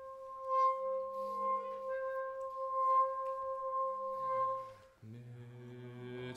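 Contemporary chamber music for baritone voice, trumpet, trombone and bass clarinet. A single high note is held steady for about five seconds over a faint lower tone. Then a low, rich sustained note comes in and swells near the end.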